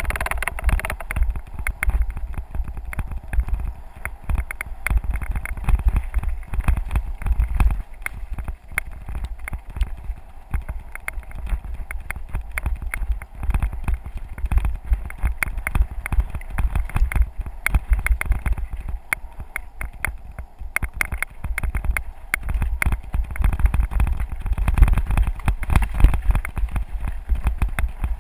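A bicycle rolling over a rough dirt and gravel forest road, with tyres crunching over loose stones and a dense, continuous rattle. Heavy wind buffeting on the microphone runs under it as a deep rumble.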